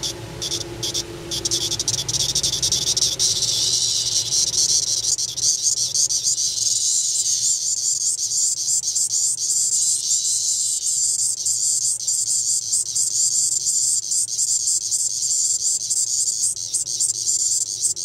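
A Magicicada tredecula periodical cicada (13-year, Brood XIX) calling. A few separate ticks at first, then from about two seconds in a loud, continuous, rapid high-pitched pulsing song that cuts off suddenly at the end.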